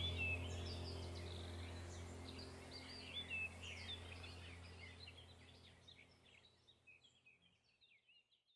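Small birds chirping and twittering in quick, high notes over a low steady hum, all fading out gradually to silence near the end.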